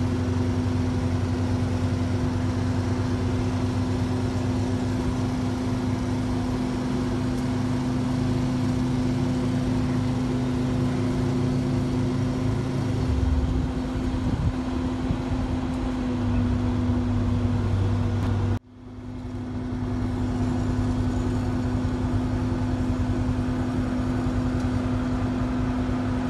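A vehicle engine running steadily, its lower note changing about halfway through. Near two-thirds of the way in, the sound drops out abruptly and fades back in.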